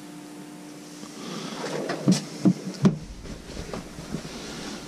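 Handling noise: a faint steady hum, then rustling and three sharp knocks a little under half a second apart, followed by a few lighter clicks, as things are moved around on a table and the camera is shifted.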